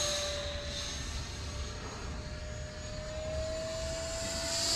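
Battery-electric 3D-printed RC Mirage 2000 jet in flight, its motor and fan holding a steady whine that rises slightly in pitch toward the end.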